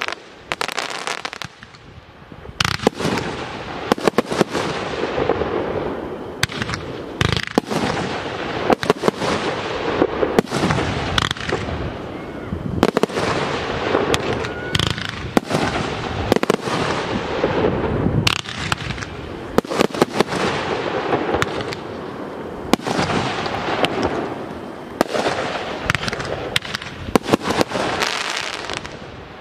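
Aerial fireworks display: a rapid run of shell bursts and sharp bangs over continuous crackling, with a short lull about a second in before the barrage picks up again.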